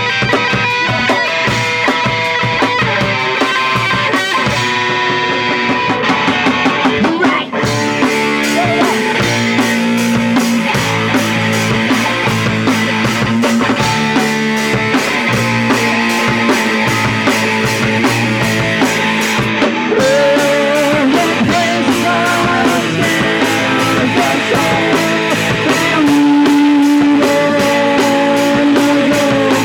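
Punk rock band playing live, guitar-led, with a brief drop in the sound about seven and a half seconds in.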